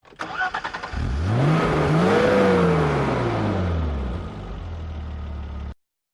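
Car engine being started: the starter cranks rapidly for about a second, then the engine catches, flares up in revs and settles back to a steady idle. The sound cuts off abruptly near the end.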